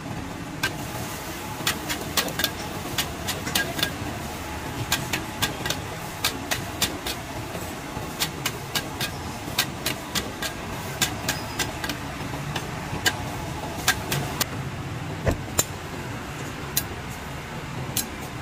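Metal spatula clinking and scraping against a wok in irregular strokes, a few a second, as vegetables and meat are stir-fried over a gas flame. Underneath is a steady noise of street traffic.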